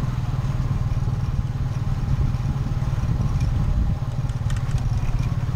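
Motorcycle engine of a Cambodian tuk tuk (a motorbike pulling a passenger carriage) running steadily at cruising speed, heard from the carriage behind it, with a few light rattles about four and a half seconds in.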